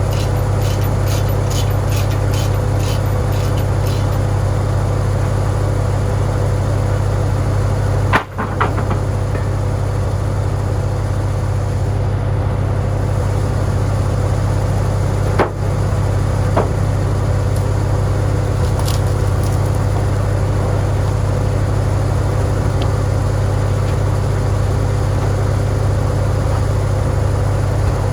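Farmall tractor engine running steadily under power, with a couple of sharp knocks about 8 and 15 seconds in.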